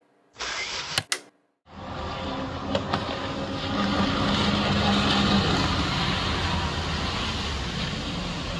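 A short logo sound ending in two sharp clicks, a brief gap, then the steady drone of jet ski engines running at speed across the water, with a hum that swells and holds for a second or so in the middle.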